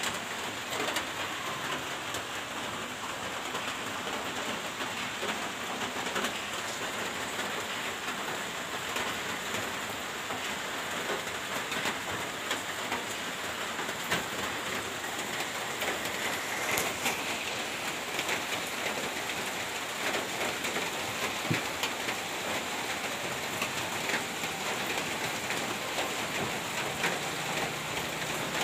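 Steady rain falling: an even hiss with many small drop ticks.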